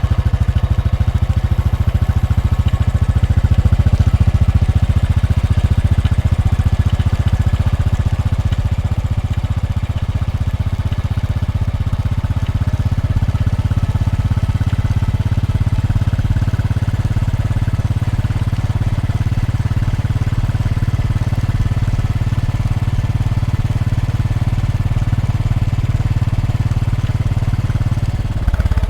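Royal Enfield Bullet motorcycle's single-cylinder four-stroke engine idling steadily with an even beat.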